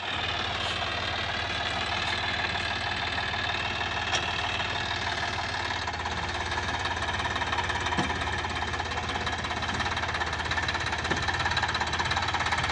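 Sonalika DI 50 RX tractor's diesel engine running steadily under load as it drives a rear rotary tiller through the soil, with two brief knocks about four and eight seconds in.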